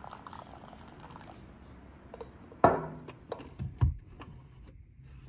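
Tea pouring from a teapot into a ceramic cup. About two and a half seconds in comes a sharp knock, then a few light clicks and a dull thump as a paper coffee cup is set into a car's cup holder.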